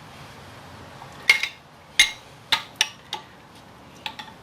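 Steel hand tool clinking against a steel screw and hub as a jack screw is turned into a taper-lock bushing, about six sharp, irregular metallic clicks with a short ring.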